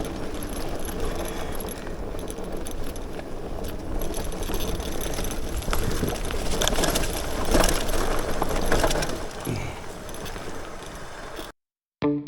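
Electric bike riding over a rough, muddy dirt road: a steady low rumble from the tyres and ride, with the bike's parts rattling and clicking over the bumps. It cuts off suddenly near the end.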